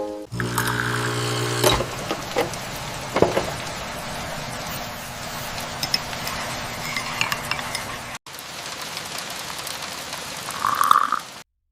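Food sizzling in a pan, a steady frying hiss with scattered clinks and taps of utensils and dishes. It drops out briefly about eight seconds in and stops abruptly near the end.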